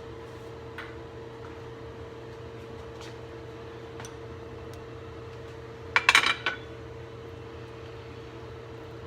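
Kitchenware clattering: a quick cluster of sharp knocks about six seconds in, like a utensil or dish knocking against a pot, with a few faint ticks earlier, over a steady hum with a constant tone.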